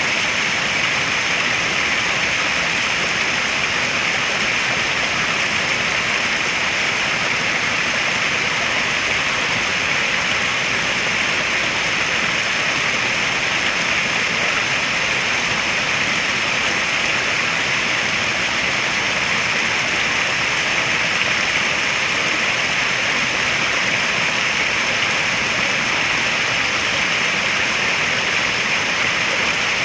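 Running water in a koi pond: a steady, even rush with no separate splashes standing out.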